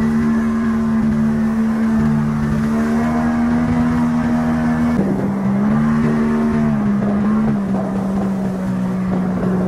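Outboard motor driving an inflatable boat up a river, running at a steady pitch. About halfway through the pitch drops a step, then wavers a little up and down.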